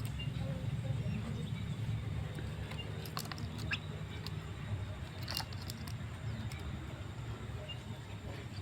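Steady low hum, with a few sharp clicks about three and five seconds in and faint, short high chirps from a myna.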